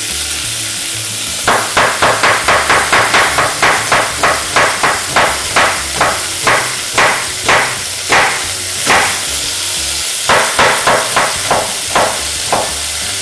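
Chef's knife slicing half an onion into thin julienne strips on a wooden cutting board: sharp knocks of the blade on the board, about four a second at first, slowing to about two a second, then a short pause and another quick run near the end. Meat sizzles in hot oil in a pot underneath.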